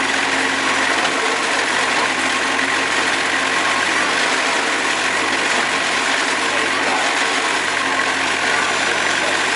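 Portable band sawmill's engine running steadily.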